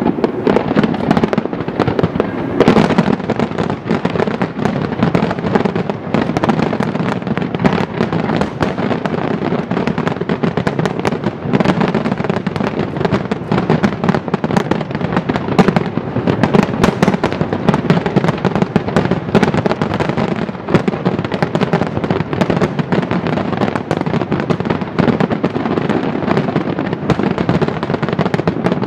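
Large aerial fireworks display in a dense, continuous barrage: shell bursts booming one on top of another with crackles, and no pause between them.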